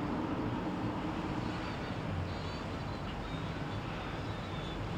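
Motorboat engines running with a steady low hum over a constant rush of noise.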